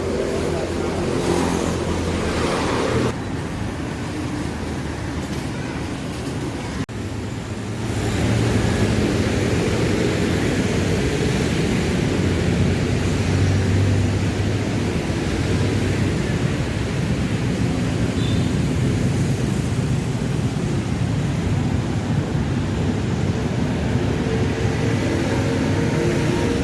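Street traffic: motor vehicles running and passing close by, growing louder about eight seconds in.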